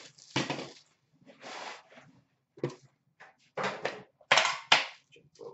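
Trading card packaging being handled: a metal card tin is opened and set down on a glass counter and card packs are picked out, giving a string of irregular crinkles, clacks and knocks, the loudest about a second in and again near the end.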